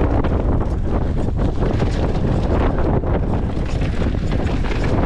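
Wind buffeting the microphone of a Giant Reign full-suspension mountain bike running fast down a rocky dirt trail, with its tyres crunching over stones and frequent short rattles and knocks from the bike.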